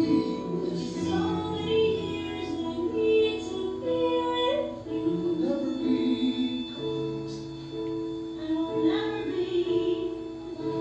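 A musical-theatre duet sung live: voices hold long notes over instrumental accompaniment.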